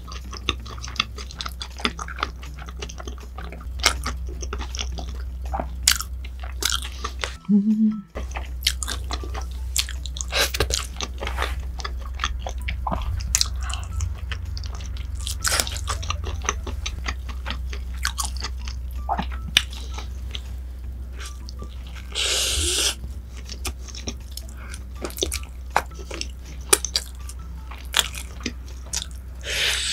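Close-miked chewing and crunching of crispy food in the mouth, many sharp crackles over a steady low hum, with a louder crunch about twenty-two seconds in.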